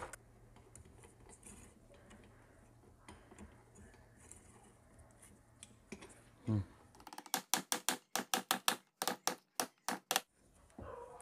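Hand tools working on a TVS Metro motorcycle engine's cylinder head, with a quick run of sharp metal clicks about five a second for some three seconds, starting about seven seconds in. Before that there is only faint handling noise and a short knock.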